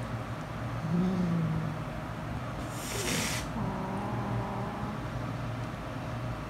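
A cat hisses once, about three seconds in: a short, harsh hiss of about half a second, an angry warning at a newly met cat. Low growling comes before and after it.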